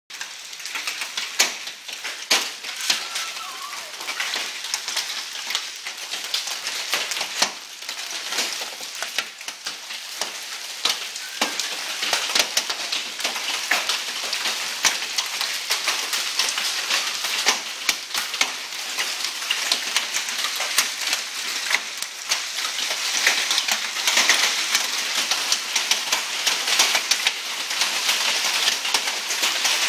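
Hailstorm: a dense hiss of hailstones pelting down, with many sharp clicks of stones striking hard surfaces. It grows heavier about halfway through.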